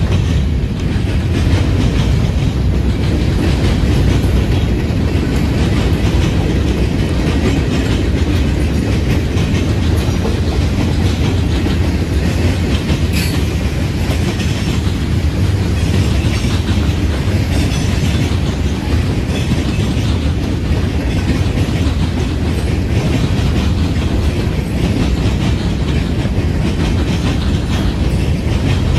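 Freight train cars rolling past close by, covered hoppers and boxcars, in a steady low rumble with faint repeated clicks of the wheels over the rail joints.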